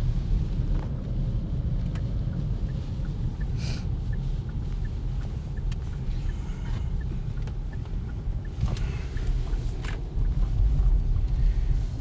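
Steady low rumble of a car driving slowly, heard from inside the cabin, with a few brief knocks and small rattles, growing louder near the end.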